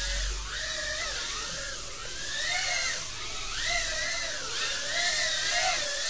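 Tiny whoop quad's 0702 27000 kV brushless motors and props whining in flight, the pitch rising and falling repeatedly with the throttle. The rough sound is D-term oscillation from the new, stiffer frame upsetting the flight tune, which needs retuning.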